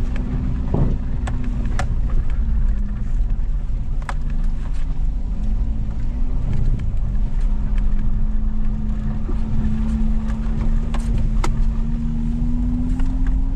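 An off-road 4x4's engine running steadily over a low rumble, its pitch rising a little near the end, with scattered sharp clicks and knocks.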